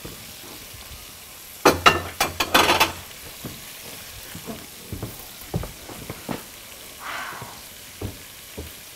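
Onions sizzling in hot oil in a frying pan as they are stirred with a silicone spatula. There is a burst of louder clattering strokes about two to three seconds in, then scattered light knocks over the steady sizzle.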